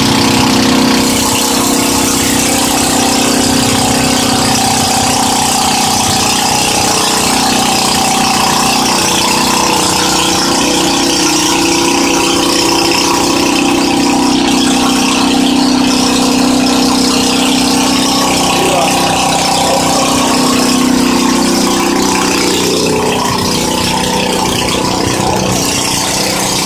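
An engine running steadily at idle, a constant hum with a hiss over it, with no break or change in speed.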